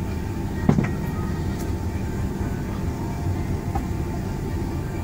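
Steady low rumble of a Boeing 767-400ER airliner heard inside the cabin, with a single knock about 0.7 s in.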